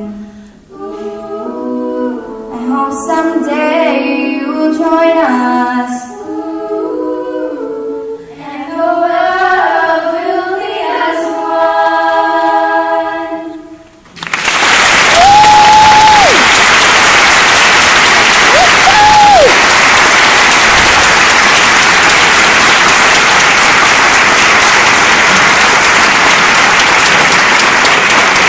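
Small female a cappella group singing a final phrase in close harmony, which ends about halfway through. Loud audience applause follows at once and continues to the end, with two whistles rising above it.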